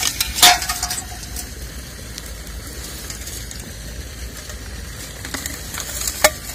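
Empty aluminium beer cans being picked up out of dry brush: two sharp clinks, one about half a second in and one near the end, each with a brief metallic ring, amid rustling of dry twigs and grass. A steady low rumble runs underneath.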